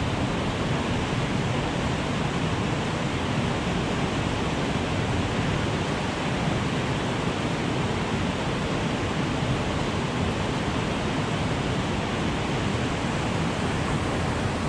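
Steady rush of turbulent white water pouring out below a concrete dam spillway.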